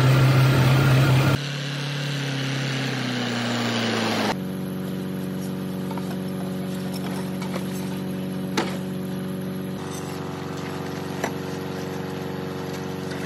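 Belarus tractor's diesel engine running, its hum settling into a steady idle after about four seconds, with a few short sharp knocks.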